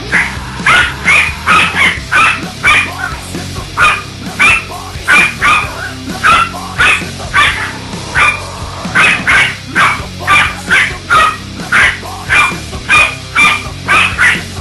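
A dog barking over and over, about two sharp barks a second, as it is roughhoused in play, over background music.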